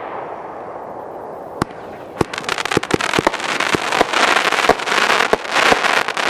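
Finale of a 33-shot consumer firework cake: a couple of single sharp pops, then from about two seconds in a dense crackling of many small snaps as crackling-tail shells burst into crackling flowers.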